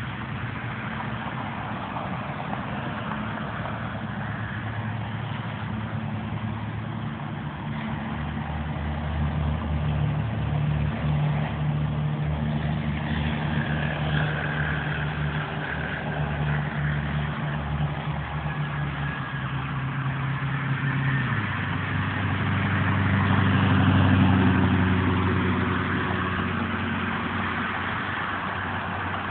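Road traffic: engines running steadily and tyre noise from passing vehicles. The engine pitch drops about three-quarters of the way through, and one vehicle passes loudest shortly after.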